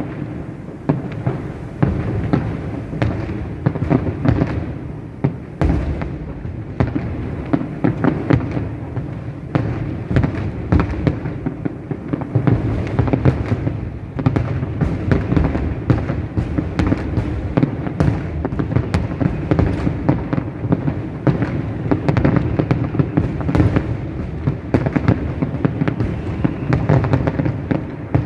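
Fireworks display: a dense, continuous barrage of overlapping bangs with no break.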